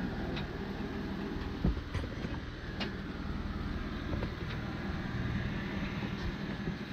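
Jeep Wrangler's engine running at low revs as it crawls over rock ledges, with a few knocks and clicks and one thump about a second and a half in.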